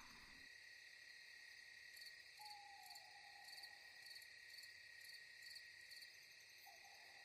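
Faint night-time forest ambience: crickets chirping steadily, about two chirps a second, with two long, slightly falling calls a few seconds apart.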